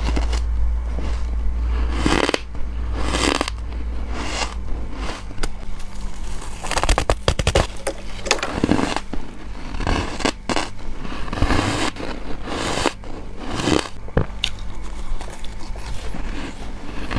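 Bites into soft, flaky freezer frost, each a short crackling crunch, repeated about once a second or so.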